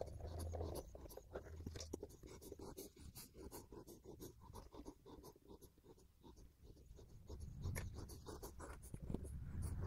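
Faint scratching and scattered small clicks of hands gripping and turning a painted motorcycle gas tank, rolling it over to spread epoxy sealer around the inside.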